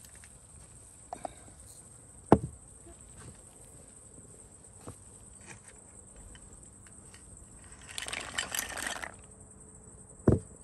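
Two sharp knocks, one a couple of seconds in and one near the end, with a scraping rustle about a second long shortly before the second knock, over a faint steady hiss.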